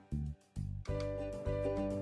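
Background music of steady pitched notes, dropping out briefly about half a second in and then coming back in.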